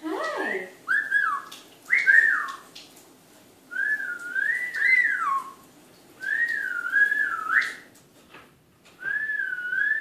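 Male eclectus parrot whistling: about six short whistled phrases, each a wavering tone that rises and falls, separated by brief pauses, the first opening with a falling note.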